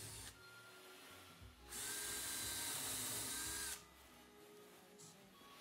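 DeWalt cordless drill/driver running a screw in short runs: a brief run that stops just after the start, then a steady two-second whine of the motor and gearbox about two seconds in.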